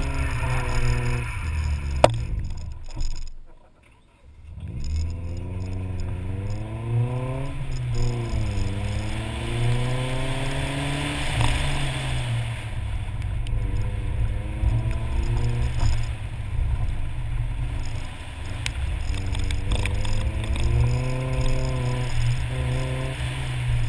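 Nissan 240SX's KA24 2.4-litre inline-four engine revving up and down as the car is driven hard through an autocross course, its pitch repeatedly climbing and falling. About three seconds in the engine sound nearly dies away for a moment, then picks up again.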